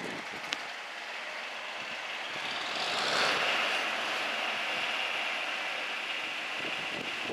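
John Deere 4020 tractor engine running, growing louder about three seconds in, followed by a steady high whine.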